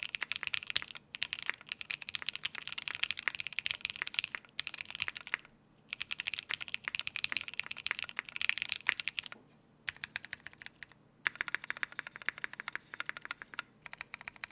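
Typing on a Keycult No. 1/60 aluminium 60% mechanical keyboard with lubed Gateron Ink linear switches, GMK keycaps and a gasket-mounted half polycarbonate plate: fast runs of keystrokes broken by a few short pauses.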